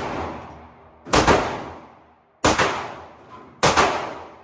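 Three gunshots, about a second and a quarter apart. Each rings off in a long echo, typical of an indoor shooting range.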